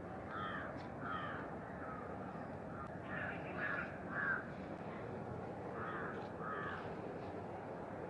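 Crows cawing: several short caws in twos and threes, the loudest a little past the middle, over a steady background hiss.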